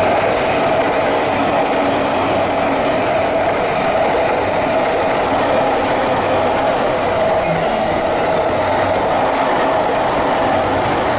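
Electric commuter train running alongside the platform: a loud, steady rail noise with a steady tone running through it.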